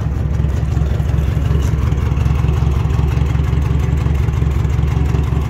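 Warmed-up Ford 2000 tractor engine idling steadily.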